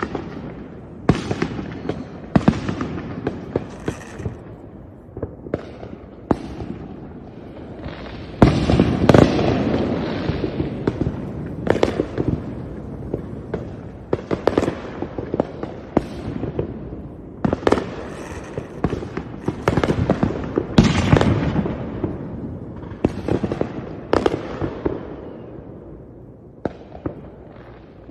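Fireworks exploding in quick succession, with sharp bangs and crackling bursts that echo away. The bangs come thickest about a third of the way in and again about three quarters of the way through.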